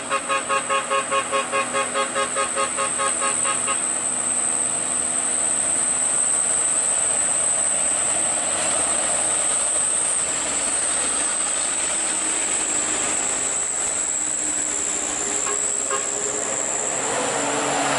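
A truck horn blown in rapid pulses, about four or five a second, stops about four seconds in. Then diesel truck engines run under load climbing the hill, a steady dense engine and tyre noise.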